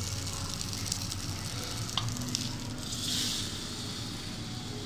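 Salmon fillets sizzling in a hot square nonstick pan, a steady frying hiss. A single sharp click about two seconds in, and the sizzle swells briefly about three seconds in.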